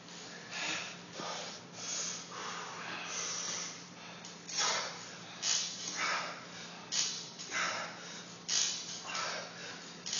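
A man's hard breathing during fast pull-ups: sharp, noisy exhalations that come about every three-quarters of a second from about halfway through.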